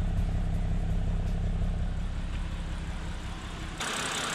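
Freshly rebuilt BMW N52B25 2.5-litre straight-six idling steadily, heard at the exhaust tailpipe as a low even rumble. About four seconds in, the sound switches to the engine bay: a brighter hiss with less low rumble.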